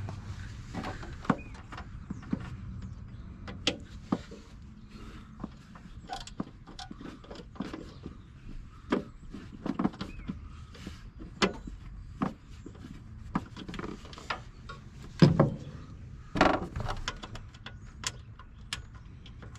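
Irregular clicks, clanks and rattles of hands and tools working on a mower deck during a deck belt replacement, with two louder knocks near the end.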